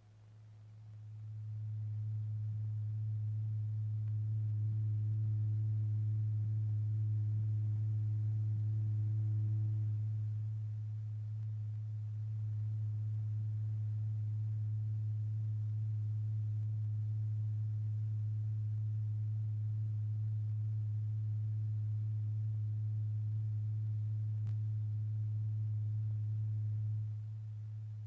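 A pure, low sine tone that drives the vibrating diaphragm in a cymatics experiment, holding one pitch throughout. It swells in over the first couple of seconds, its volume rises and falls a little, and it drops in level near the end as the amplitude of the tone is changed.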